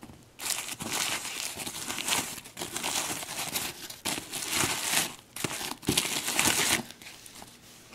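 Bubble wrap being pulled off the end of a speaker cable and crumpled by hand, crinkling and crackling in a run of irregular bursts that die down near the end.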